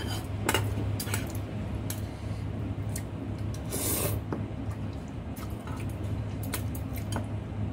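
A person eating rice vermicelli noodle soup with chopsticks: scattered light clicks and taps, and a slurp of noodles about four seconds in, over a steady low hum.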